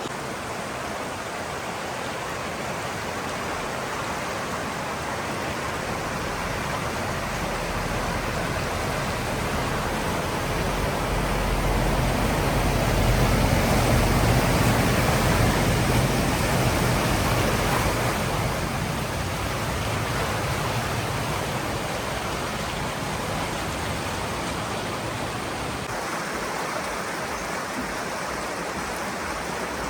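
Rushing, splashing water with a low rumble that builds over several seconds, peaks mid-way and then fades: a vehicle ploughing through floodwater as it passes.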